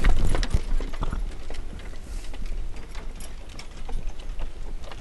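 Horse hooves clip-clopping with the knocking and rattle of a wooden horse-drawn wagon, fading as the wagon moves away.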